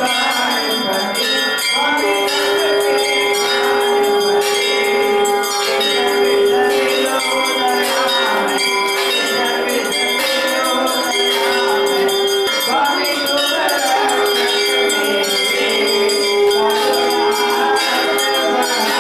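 Temple bells ringing continuously in rapid clangs. About two seconds in, a conch shell (shankha) starts being blown in long, steady held notes with a few short breaks, ending shortly before the end.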